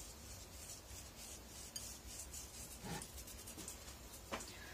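Faint gritty rubbing of a pinch of salt sprinkled from the fingers over a salad, followed by a light knock about three seconds in and a short click shortly before the end.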